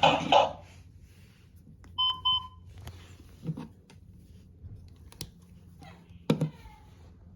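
Talking monkey toy's electronic jingle dying away in the first half second, then two short electronic beeps about two seconds in. A few sharp clicks and knocks from the toy being handled follow, the loudest near the end.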